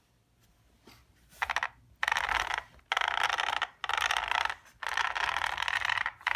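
Drivetrain gearing of an Arrma Senton 3S BLX 1/10-scale short-course truck whirring as a wheel is spun by hand, in about five repeated spins each lasting under a second to a second, starting about a second and a half in. The gear mesh sounds good, with no sign of binding.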